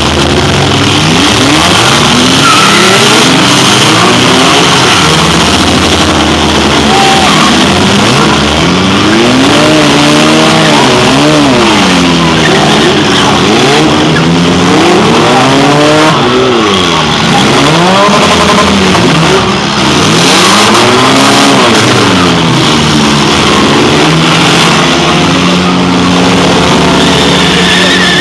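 Several demolition derby cars' engines revving up and down over and over at the same time, loud and without a break.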